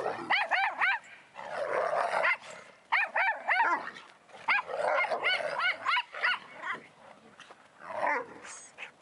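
Dogs play-fighting, a Newfoundland and an Old English Sheepdog among them: quick runs of high barks and yips in several bursts, with rough growling between.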